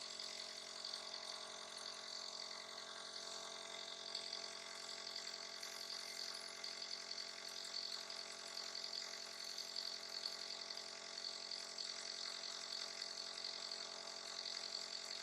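Small motor of a breathing-aid machine running steadily: an even hum with an airy hiss.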